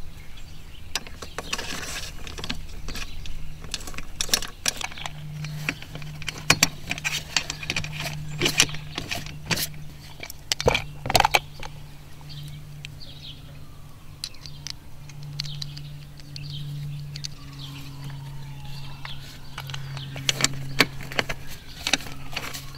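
Hard plastic kayak accessories, cup holders and track mount bases, clicking and knocking as they are handled and fitted onto a mounting track, in irregular sharp taps. A steady low hum runs underneath.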